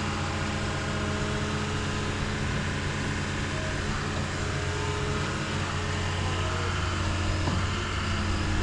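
Diesel engine of heavy earthmoving equipment running steadily at an even pitch.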